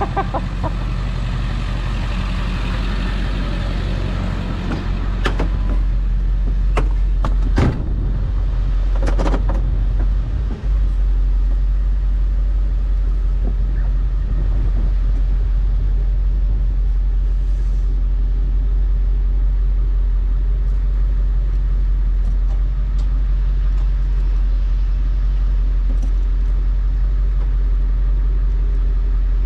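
Vehicle running and rolling along, heard from inside the cab as a steady low engine and road rumble, with a few short knocks or clicks about five to nine seconds in.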